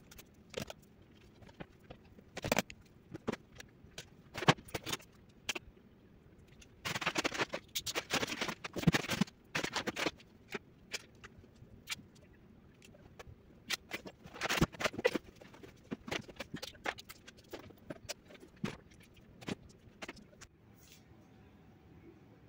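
Clothes and hangers being handled in a wardrobe: scattered clicks and knocks of hangers and items being moved, with two longer spells of rustling fabric, one a few seconds in and a shorter one later.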